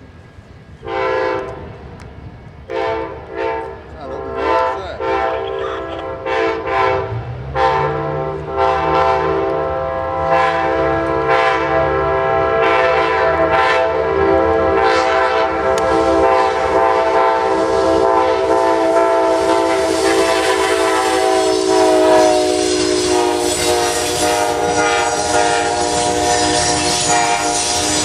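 Nathan K5LA five-chime air horn on an Amtrak GE P42DC locomotive, played as a horn show: a string of short blasts, then long held blasts as the train comes on. The horn chord drops in pitch about 22 seconds in as the locomotive passes, with its diesel engine running underneath.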